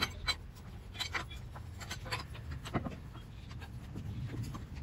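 Wheel brace turning the lug bolts of a VW Polo's alloy wheel to take them out: a string of irregular metal clicks and taps.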